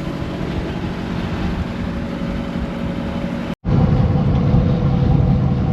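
A large engine running steadily. The sound drops out for a moment about three and a half seconds in and comes back louder.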